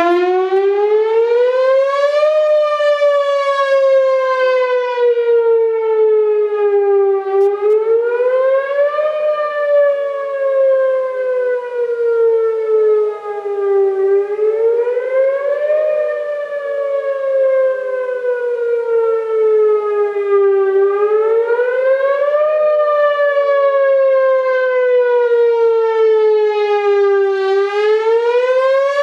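Whelen WPS-4008 electronic outdoor warning siren sounding a wail: it cuts in abruptly, then its tone rises quickly and falls slowly, over and over, about once every six and a half seconds. Its loudness swells and dips as the rotating speaker array turns toward and away.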